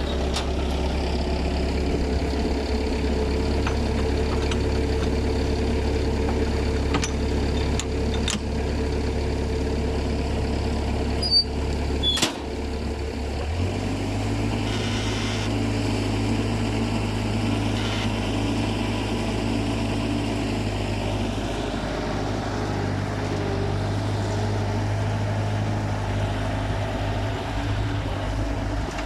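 Bobcat skid steer engine running steadily, its note shifting about halfway through as the throttle or load changes, with a few sharp metallic clanks.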